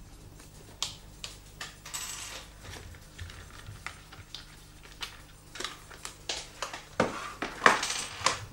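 Small scattered clicks and scrapes of a screwdriver and hard plastic parts as a crash helmet is stripped down, with a short scrape about two seconds in and a few louder knocks near the end.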